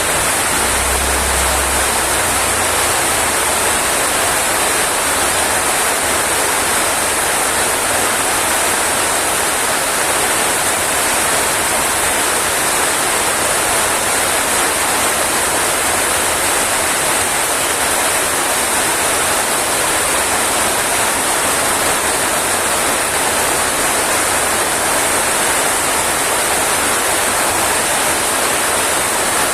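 Rain falling steadily, an even hiss that keeps up without a break.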